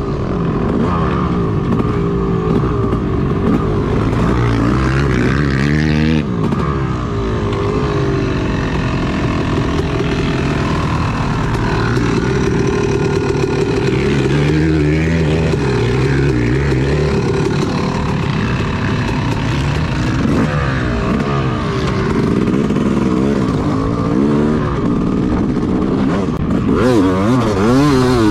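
Yamaha YZ250 two-stroke motocross engine under hard riding, its pitch climbing and dropping again and again as the throttle is worked and gears change.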